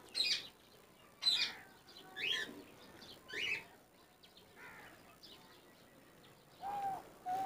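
Birds chirping: four short, high chirps about a second apart, some rising in pitch, then near the end a run of short calls held at one steady pitch.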